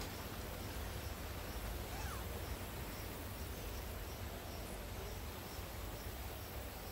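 Outdoor ambience: a steady hiss and low rumble, with a faint high insect chirp repeating about twice a second.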